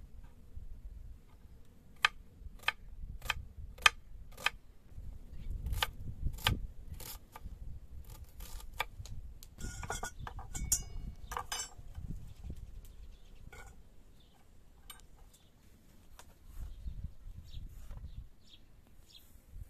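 Kitchen knife chopping an onion on a wooden cutting board, sharp regular strokes about two a second. A little past halfway there is a short clatter with a ringing clink of metal, like a metal bowl being handled, then a few scattered lighter knocks.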